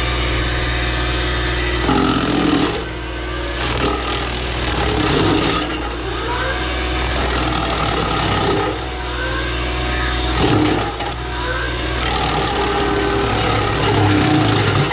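Diesel engine of a CAT 304 mini excavator running steadily under load while its brush-cutter mulching head works, with irregular surges of crunching and cracking as brush and wood are chewed up.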